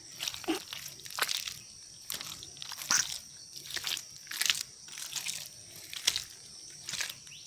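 Crunching footsteps on farm ground and vegetation, an irregular step every half second to a second, over two steady high-pitched tones.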